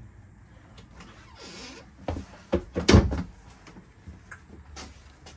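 Wooden RV cabinet door being handled and shut: a short hiss about a second and a half in, then several knocks and bangs, the loudest about three seconds in, and a couple of light clicks near the end.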